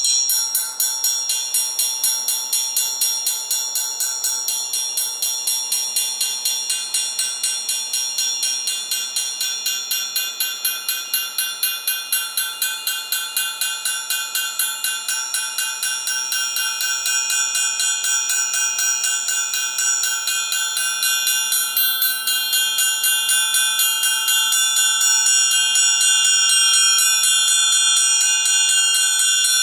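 Amplified triangle struck over and over in a fast, even rhythm, about three strokes a second, its many high metallic overtones ringing on without a break. Towards the end the strokes run together into a fuller, steadier ring.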